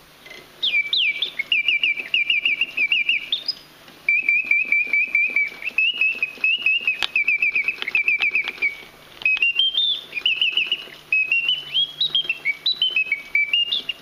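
French Bontems mechanical singing-bird automaton whistling its song: a bellows-blown whistle warbles in quick chirping trills and gliding notes, in phrases broken by three short pauses, over a fine clicking from the clockwork movement.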